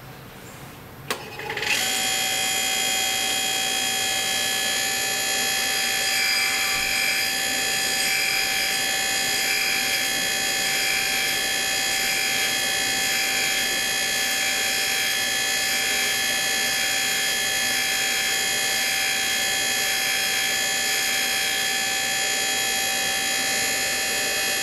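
Valve refacing machine switched on a little under two seconds in, its motor and grinding wheel then running with a steady whine. A faint rasp comes and goes in a slow rhythm for several seconds as an MGB rocker arm's valve pad is ground on the wheel to reface it.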